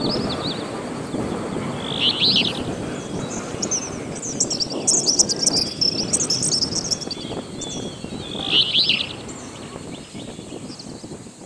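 Birds chirping in clusters of quick, high twittering notes, a few times over several seconds, over a steady low outdoor din.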